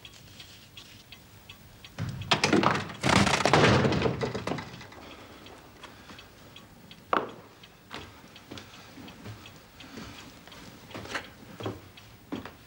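Clock ticking, then about two seconds in a loud clattering rush of noise lasting about two and a half seconds, as a door is flung open. A single sharp knock follows about seven seconds in, with a few softer knocks near the end.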